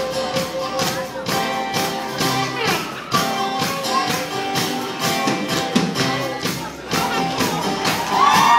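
Live band music: guitar over drums keeping a steady beat. Near the end it gets louder as a crowd starts to shout and cheer.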